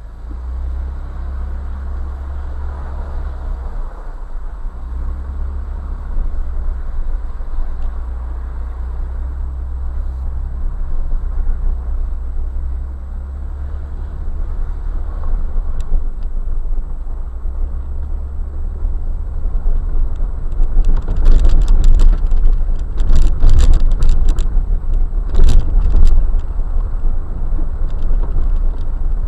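Jeep driving on a dirt and gravel wash trail, heard from a dashboard camera in the cab: a steady low rumble of engine and tyres. About two-thirds of the way through comes several seconds of loud rattling and clattering as the vehicle jolts over rough ground.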